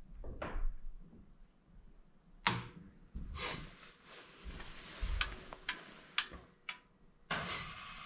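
Sharp clicks and knocks at an open gas furnace, four of them about half a second apart. A steady mechanical whir then starts near the end.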